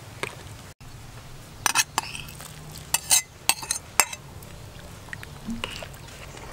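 Metal spoon and ladle clinking and scraping against a plate and an aluminium cooking pot as shredded coconut is scraped into a simmering sweet potato dessert and stirred. There is a quick series of sharp clinks between about one and a half and four seconds in.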